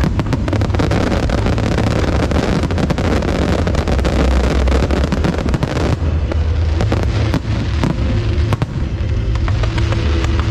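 Fireworks show: a dense barrage of bangs and crackling for about six seconds, thinning to scattered pops and cracks over background music.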